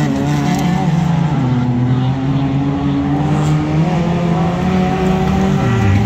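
Several small autocross cars of the up-to-1400 cc class racing on a dirt track, their engines held at high revs and overlapping. Near the end one engine's pitch drops sharply.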